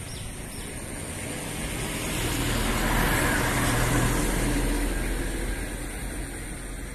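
A motor vehicle passing by: its engine and road noise grow louder about two seconds in, peak mid-way, then fade away.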